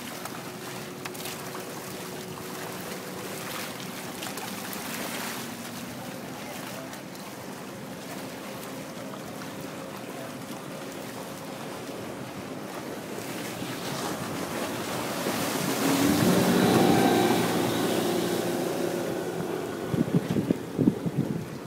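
Wind buffeting the microphone over water rushing past the hull of a small sailing outrigger boat under way. The sound swells to its loudest about three quarters of the way in, with a low hum under it, and ends in a run of sharp gusty thumps.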